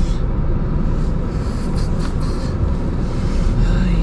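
Steady road and engine rumble heard from inside a moving car.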